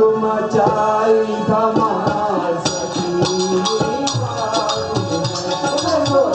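Live Hindu devotional bhajan music: singing over harmonium and hand drum, with jingling small percussion that grows stronger about three seconds in.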